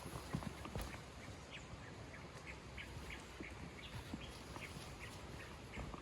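Faint short bird calls, repeated irregularly, over the scuffing of footsteps on the trail.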